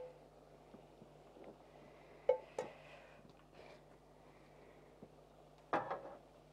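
A few scattered clinks and knocks of a metal pan and serving plates being handled, the loudest a ringing knock near the end, over a faint steady hum.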